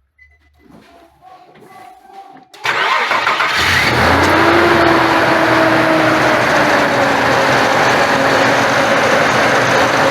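2006 Nissan Frontier's engine starting about two and a half seconds in and then running steadily, freshly fitted with a new accessory belt tensioner. A faint tone rises as it catches and then slowly settles.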